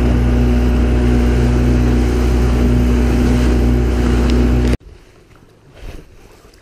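Small aluminium boat under way at speed: its motor runs steadily under the rush of wake, spray and wind. The sound cuts off abruptly about three-quarters of the way through, leaving only quiet water and handling sounds.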